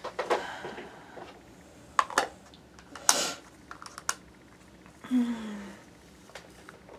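Light plastic clicks and taps from diamond-painting tools being handled: a few sharp clicks, with a short rattle about three seconds in.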